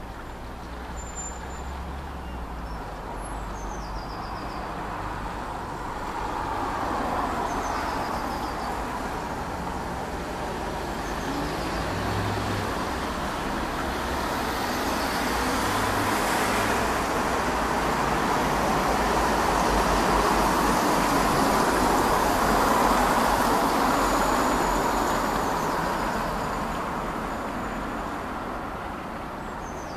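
Distant vehicle noise: a steady rushing sound that builds slowly, peaks about two-thirds of the way through, then fades, with a few faint high chirps near the start.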